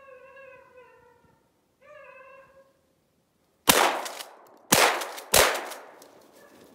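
A hare-hunting hound baying in long, drawn-out calls, twice in the first few seconds, as it runs a snowshoe hare's track. Then three loud gunshots in quick succession, under a second apart, about midway through.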